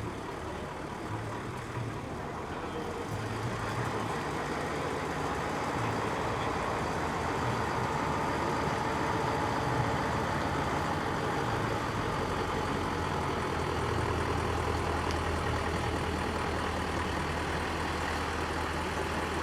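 Heavy vehicle's engine running steadily at low speed, getting a little louder after the first few seconds and settling into an even low hum in the second half.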